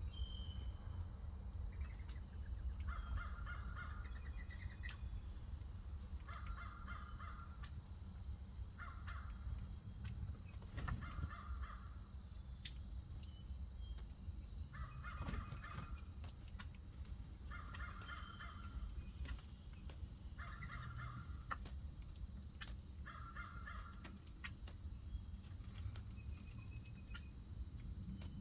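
A crow cawing: single harsh caws repeated every two to three seconds. From about halfway, short sharp high chip notes of a small bird ring out every second or two and are the loudest sounds, over a faint steady high-pitched tone.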